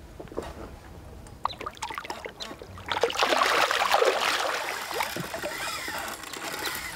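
A large trophy pike thrashing and splashing at the surface beside the boat while being played on a spinning rod. The splashing starts about three seconds in, is loudest for the next second or so, then eases into lapping and sloshing water.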